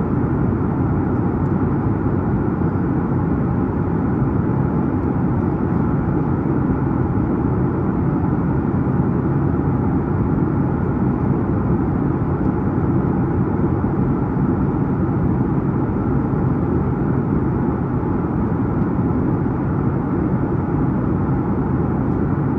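Steady cabin noise inside a Boeing 737-9 MAX in flight: the drone of its CFM LEAP-1B engines mixed with airflow rush, heard from a window seat, unchanging throughout.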